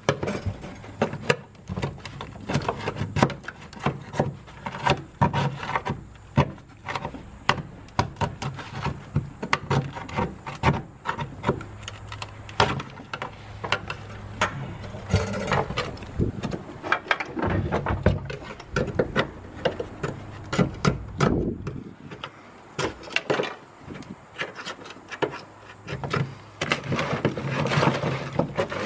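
Hand scraper chipping and scraping dry-ice-frozen sound deadening off a car's steel floor pan: a run of irregular sharp knocks and cracks mixed with scraping as the brittle deadener breaks away.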